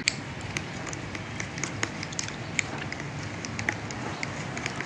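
Spoon stirring a glass of iced bean drink with shaved ice: irregular light clinks of ice and spoon against the glass, several a second, over a steady background hiss.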